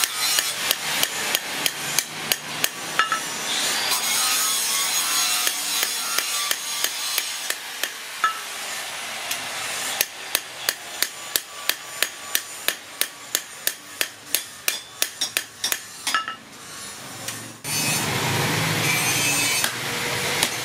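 Hand hammer striking a steel cleaver blade on a small anvil: a long run of sharp metallic blows, about two to three a second, coming faster after a short pause partway through. Near the end the hammering gives way to a steady rushing noise.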